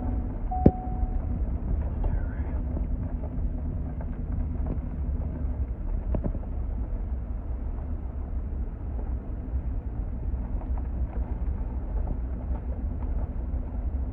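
Steady low rumble of engine and tyre noise inside a moving vehicle's cabin, with a short beep and a sharp click about half a second in.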